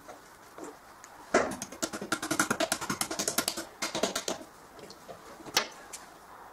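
Small metal clicks and rattles as pliers work a cotter pin out of a hydraulic cylinder's end pin. A quick run of clicks lasts about three seconds, then one more click comes near the end.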